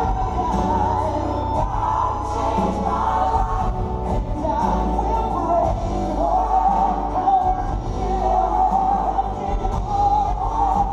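Live Christian worship music: a band playing with voices singing the melody over a steady bass.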